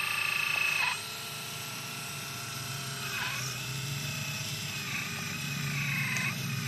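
Small electric hydraulic pump and motors of an RC excavator whining while the machine digs. The whine steps down to a lower tone about a second in, then sags in pitch twice under load.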